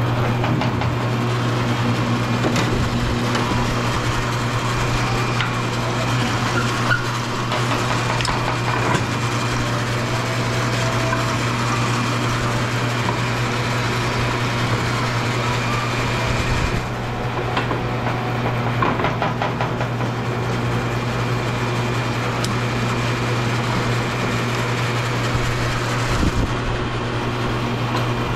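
Electric copper wire stripping machine running with a steady motor hum, with a few scattered knocks and clatter.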